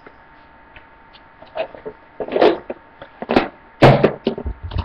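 A series of knocks and clunks from kitchen items being handled and put away, about half a dozen in a few seconds, the loudest a little before the end.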